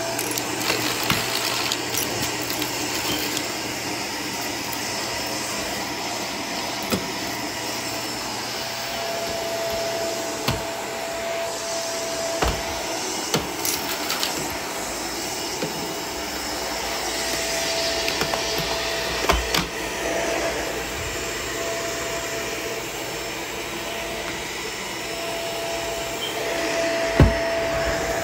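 Vacuum cleaner running steadily, with a thin whine that comes and goes and a few sharp clicks and knocks, the loudest one near the end.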